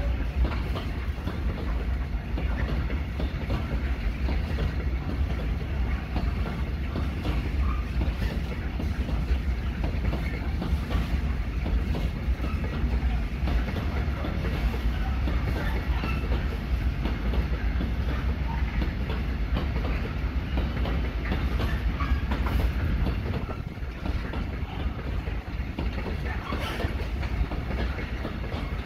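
A long freight train of open coal wagons rolling past, with steady wheel rumble and repeated clattering of wheels over rail joints. The low rumble eases somewhat about three quarters of the way through.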